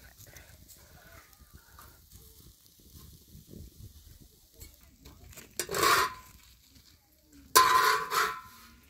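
A metal knife scraping under thin oak-flour flatbread on a hot domed iron griddle, lifting it off: two short scrapes, the second a little longer, about two seconds apart near the end.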